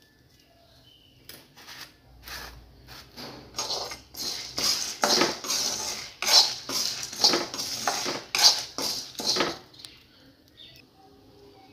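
Steel spoon scraping and stirring dal and dried red chillies dry-roasting in a kadai, in a run of quick metal-on-pan scrapes and clatters. It starts about a second and a half in, is busiest from about three and a half to ten seconds, and stops near the end.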